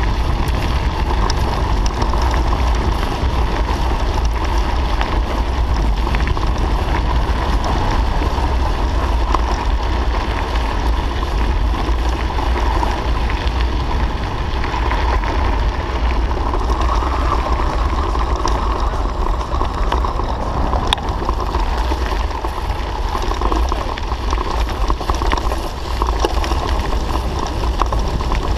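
Wind buffeting a handlebar-mounted camera's microphone over the steady rumble and crunch of mountain-bike tyres rolling on a gravel road, with scattered small ticks of grit.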